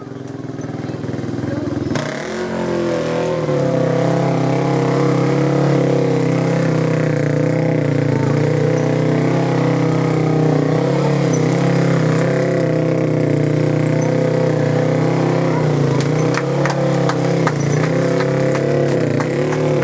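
Enduro motorcycle engine running at a steady speed, coming in about two seconds in and then holding an even note, with a few scattered clicks near the end.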